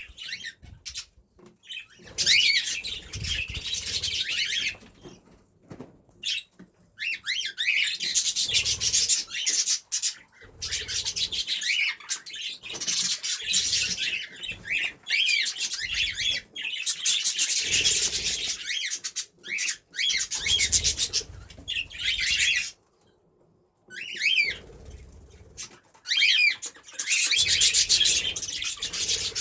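Pet budgerigars and cockatiels chirping and chattering in bouts of a few seconds, with brief pauses between.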